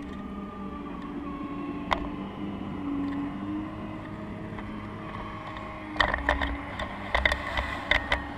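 Hydraulic pump of a 1:8 scale RC model Caterpillar 390D excavator whining steadily, its pitch dipping now and then as the arm works. About six seconds in, a quick run of sharp knocks and rattles comes as the bucket swings over the pile and dumps its soil.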